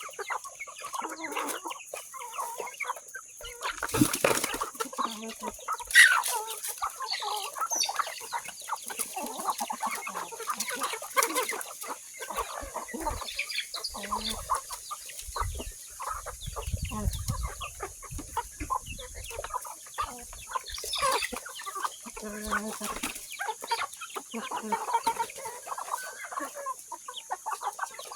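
Chickens clucking continuously, with a few sharper, louder calls now and then.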